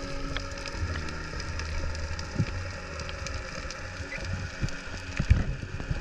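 Underwater ambience over a coral reef, heard through the camera's underwater housing: a steady crackle of many faint clicks over a low rumble, with a faint steady hum beneath.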